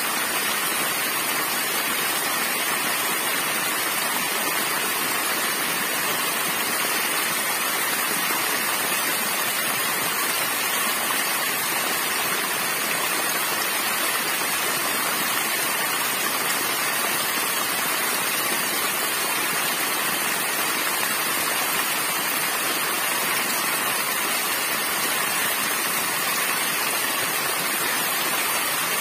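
Small waterfall: thin streams of water falling over a rock ledge and splashing onto rock below, a steady, unbroken rush of water.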